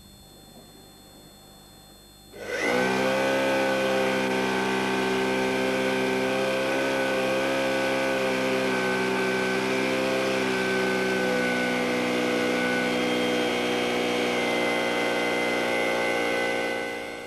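Electric air pump switching on about two seconds in and running with a rather noisy, steady hum as it blows air through a glass tube into a beaker of petrol; the sound dies away near the end.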